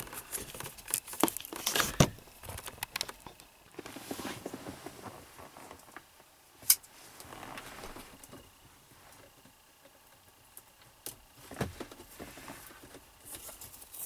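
Hands working a wiring harness behind a dash: rustling of tape and foam with small scattered clicks of wires and plastic connectors, a knock about two seconds in and one sharp click near the middle.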